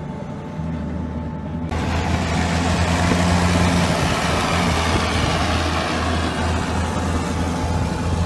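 Diesel engine of a Pandur II 8x8 wheeled armoured vehicle running with a steady low hum. About two seconds in, a loud rushing noise joins it as the vehicle drives across the field.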